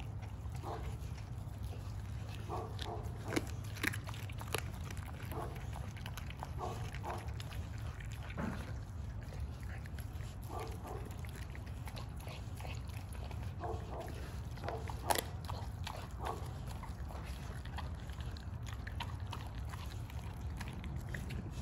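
American bully dog chewing a raw whole chicken, with wet chewing and crunching in short irregular bouts. A few sharp cracks stand out about three to four and a half seconds in and once near fifteen seconds. A steady low rumble runs underneath.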